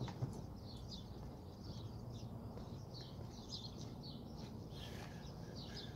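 Small birds chirping over and over, irregularly, above a steady low background rumble, with a couple of light knocks at the very start.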